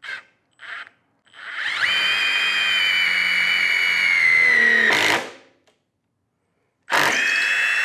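Milwaukee M18 Fuel Gen 3 impact driver drilling into wood with a 7/32-inch Red Helix Shockwave titanium bit: two short trigger blips, then a steady motor whine of about four seconds that rises to speed, sags slightly as the bit cuts, and stops. A second run starts near the end.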